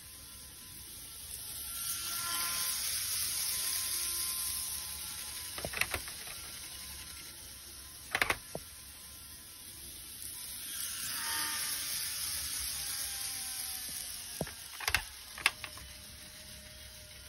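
Model train of a 225 series 100 set running on the track, its motor whine and wheel noise swelling and fading twice as it passes, with a few sharp clicks in between.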